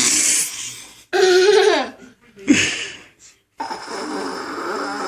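Odd vocal noises: a drawn-out sound falling in pitch, a short sharp snort-like sound, then after a brief silence a long, steady pitched call.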